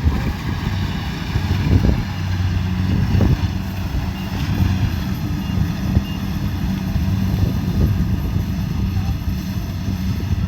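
Kubota DC70 Pro combine harvester running steadily, its diesel engine giving a low drone under a wash of machine noise, with a few brief knocks in the first few seconds.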